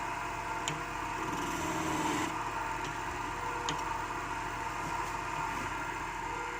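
Wood lathe running steadily with a hum and a few faint clicks; no heavy cutting.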